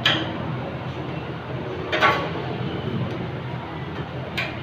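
Wire grille guard of a stand fan being handled and clipped into place: three sharp metallic clicks about two seconds apart, the middle one loudest, over a steady low hum.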